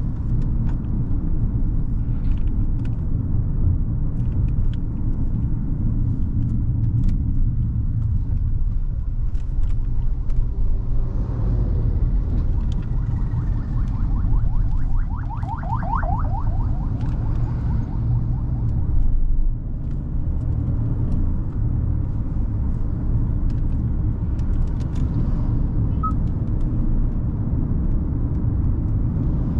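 Hyundai Creta driving along a road: a steady low rumble of tyres and its 1.5-litre four-cylinder petrol engine, with scattered small ticks. A short falling tone sounds about halfway through.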